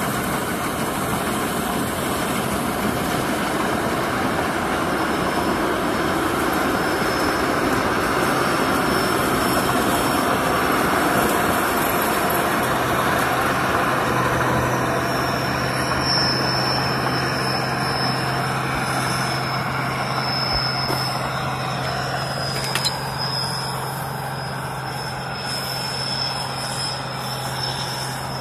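An 8060 combine harvester running while it harvests rice: a steady engine drone under the dense whirr of its threshing machinery, with a thin high whine over it. The noise eases slightly over the last few seconds as the machine moves away.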